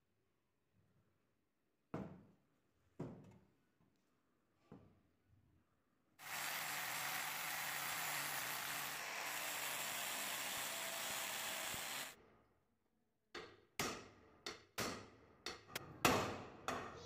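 A few knocks of the metal pan being handled, then an angle grinder running steadily for about six seconds as it grinds at the rivets holding the bed-warming pan's handle, cutting off abruptly. Near the end a hammer strikes a punch about ten times in quick succession, driving out the handle rivets.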